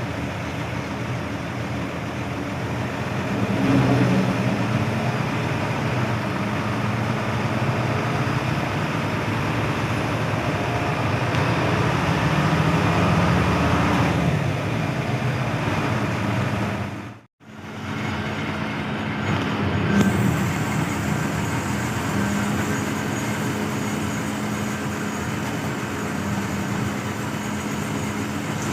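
Hino AK8 front-engined bus running on the road, a steady diesel engine drone with tyre and road rumble, swelling at times. The sound cuts out abruptly for a split second about 17 seconds in, then resumes steadily.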